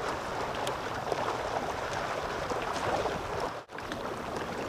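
Steady wind and water noise around a kayak on open water, with small splashes of water against the hull. The sound drops out for a moment about three and a half seconds in.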